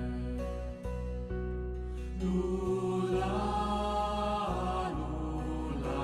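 Slow meditative song: steady held tones underneath, with a voice singing long, drawn-out notes that come in about two seconds in.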